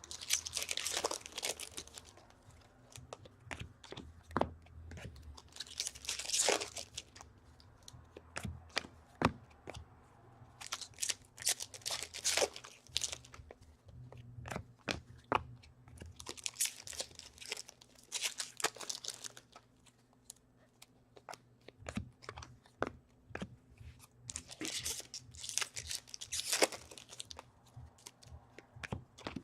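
Trading-card pack wrappers being torn open and crinkled, one pack after another, about six times, with small clicks and taps of cards being handled between the tears.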